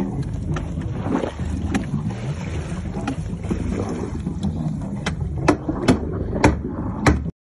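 Water sloshing and wind noise around a sailing boat's stern as orcas churn the surface just behind it. In the last couple of seconds there is a run of five sharp knocks, about two a second.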